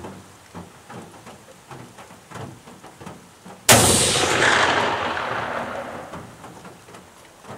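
A single hunting-rifle shot goes off suddenly about three and a half seconds in, with its echo rolling away and fading over about three seconds.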